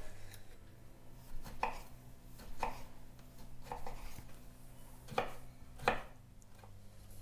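Kitchen knife finely chopping a small tomato: about six separate knife strikes against the board, spaced irregularly, with the two near the end loudest.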